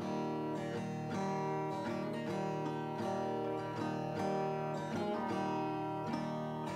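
Background music led by a strummed acoustic guitar, with chords struck in a steady rhythm.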